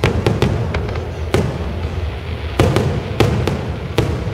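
Aerial firework shells bursting in a rapid series of sharp bangs, with a short lull in the middle, over a constant low rumble from the display.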